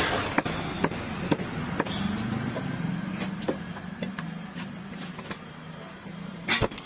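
A long, heavy knife chopping through cobia and striking a wooden log chopping block: sharp knocks, about two a second at first, then lighter and less regular, with a loud double knock near the end. A steady low hum runs underneath.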